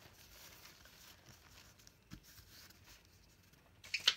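Faint rustling of a thin decoupage paper napkin being lifted and laid onto a glued map sheet, with a short, louder crinkle near the end.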